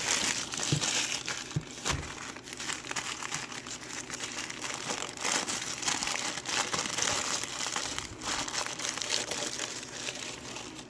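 Packing paper crinkling and rustling continuously as a lock is unwrapped by hand.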